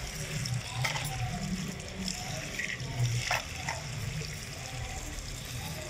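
Tap water running onto chopped spinach in a plastic colander as a hand turns the leaves to wash them, with a few brief splashes.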